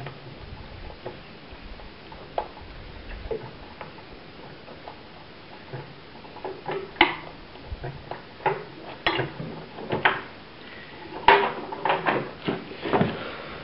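Scattered clicks and knocks of parts and tools being handled on a car engine during reassembly, sparse at first and coming thicker and louder from about halfway.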